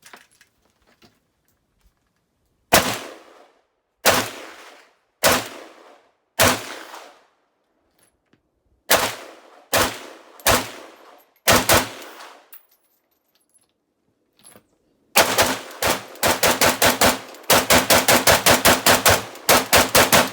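AK-pattern rifle firing. First come separate shots a second or more apart, some in quick pairs, each trailed by an echo. Then, for the last five seconds, a fast string of about four shots a second, like a mag dump.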